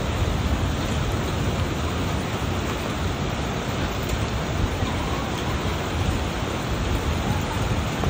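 Heavy thunderstorm downpour of rain and hail falling on a street, a steady dense rush of noise with no breaks.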